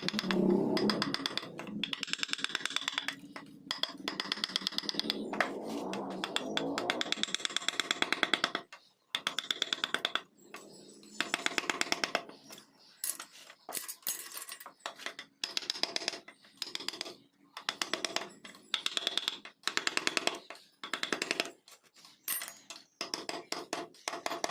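Runs of rapid, sharp taps with short pauses between them: a hammer or mallet striking a carving chisel into wood.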